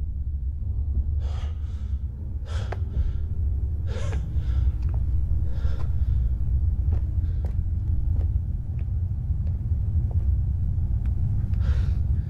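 A man's ragged gasping breaths after a fight, mostly in pairs, over a steady low rumble; they pause in the middle and one more gasp comes near the end.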